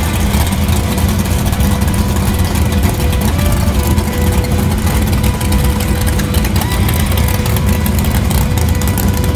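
1968 Plymouth Barracuda drag car's engine idling with a deep, steady exhaust rumble.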